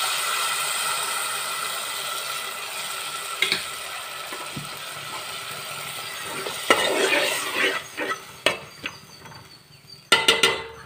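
Tamarind water poured into a hot metal pot of fried onions, sizzling at first and slowly dying down. Then a metal ladle stirring and scraping in the pot, with a few sharp clinks against the pot near the end.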